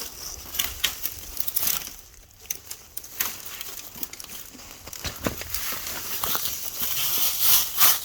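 Dirt and dry debris crunching and rustling as it is dug and scraped by hand, with many scattered sharp clicks.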